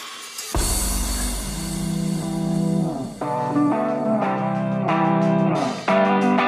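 Background music led by guitar over a bass line, starting about half a second in, with chords changing about once a second.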